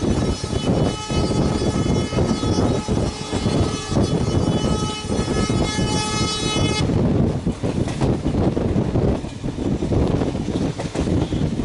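WDM2 ALCO diesel locomotive's horn held in one long blast that stops abruptly about seven seconds in, over the continuous rumble and rapid clatter of the train running on the rails.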